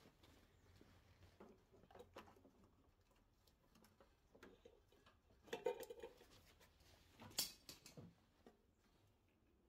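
Near silence with faint hand-handling noises around a mower engine's oil filter and funnel: scattered soft clicks and rustles, then a brief louder rustle about five and a half seconds in and a sharp click about seven and a half seconds in.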